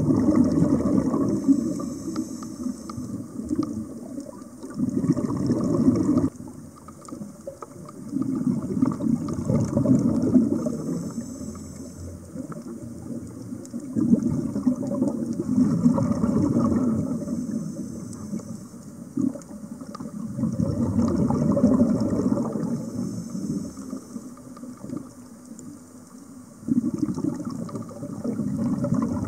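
A scuba diver's exhaled breath bubbling and gurgling past an underwater camera, in slow surges about every six seconds, with a fainter regulator hiss between them.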